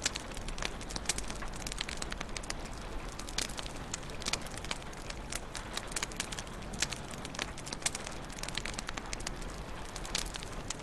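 Wood fire crackling in a fireplace: a steady hiss with frequent sharp pops and snaps scattered throughout.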